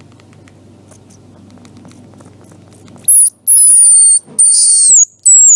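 Baby squirrel squealing: four very high-pitched cries in a row, starting about three seconds in, each falling slightly in pitch. Before them there is only a faint low hum with soft ticks.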